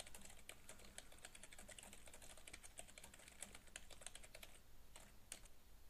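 Faint computer keyboard typing: a quick, steady run of keystrokes that stops about three-quarters of the way through, followed by two last key presses.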